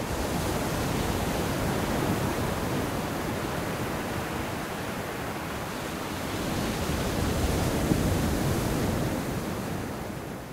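Steady rushing noise like surf, fading away near the end.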